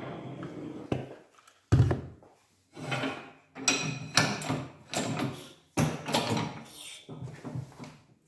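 A steady running noise stops about a second in. Then comes a sharp knock, the loudest sound, and a string of irregular metal clatters and scrapes as parts are handled around a hydraulic press and an aluminium gearbox housing.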